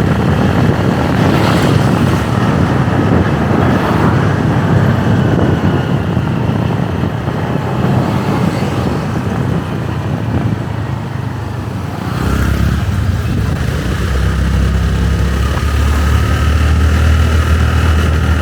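Motorbike running on the road, its engine mixed with rushing wind and road noise; about twelve seconds in the rush eases into a steadier low engine hum.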